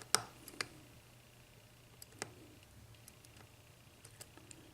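Faint sharp metallic clicks and ticks of a lock pick working the pin stack of an ERA 6-pin euro cylinder, a few in the first second and a louder one about two seconds in, then scattered lighter ticks.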